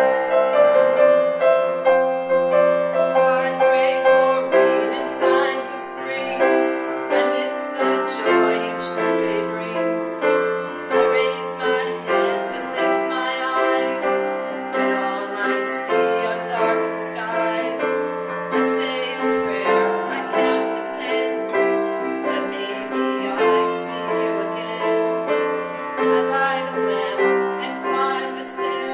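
Piano playing an instrumental piece, with notes struck and left to ring over sustained chords.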